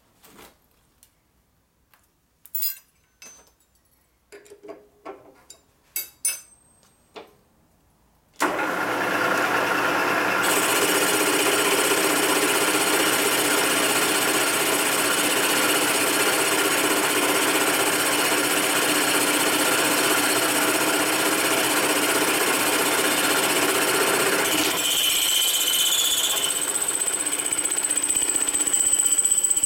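A few light metal clicks and taps, then about eight seconds in a milling machine starts and runs steadily, its cutter machining the welded aluminium exhaust spigot of a Harley panhead cylinder head back to size. Near the end the lower hum drops away and a steady high whine remains.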